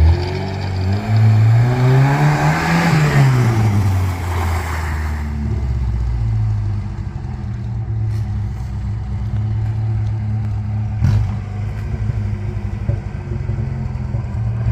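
Lada Niva engine accelerating, its pitch rising for a couple of seconds and then falling back as it eases off, before running steadily. A couple of short knocks come later on.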